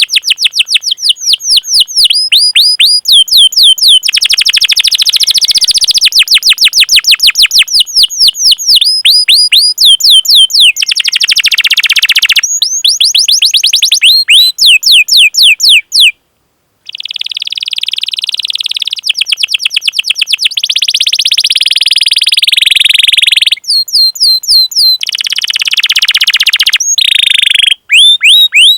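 Canary singing: long runs of rapid falling chip notes, 'cuit cuit' calls repeated several times a second, alternating with fast rolling trills. The song cuts out completely for about half a second around the middle.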